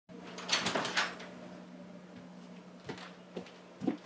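Front door being unlocked and opened: a cluster of clicks and rattles from the lock and latch about half a second in, then a few lighter knocks as the door swings open, over a faint steady hum.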